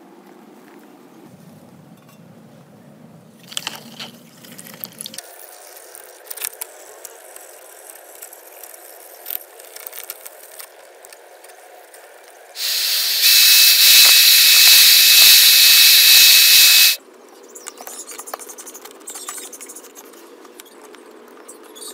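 Loud, steady hiss of a jet for about four seconds, a little past the middle, with a thin whistle running through it. Around it are quieter scrubbing as a circuit board is brushed in a basin of water, and small clicks of a board and its connectors being handled.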